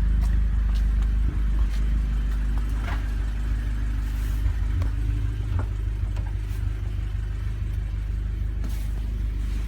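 Volkswagen Golf R's turbocharged 2.0-litre four-cylinder engine running steadily at a constant speed, a low even hum with a few scattered sharp ticks; the engine has a misfire.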